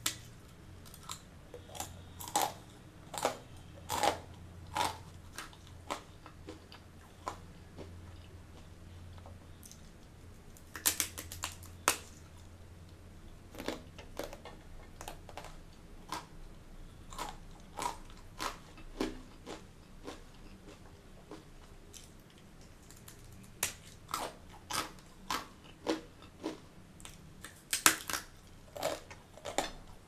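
Close-up crunching and chewing of butter murukku, a crisp deep-fried rice-flour spiral snack: irregular sharp crunches, with louder bite snaps about 11 seconds in and near the end.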